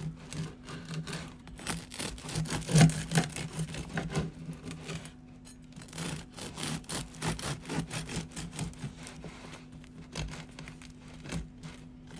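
A knife sawing back and forth through a freshly baked loaf of homemade yeast bread as slices are cut: an uneven run of short rasping strokes.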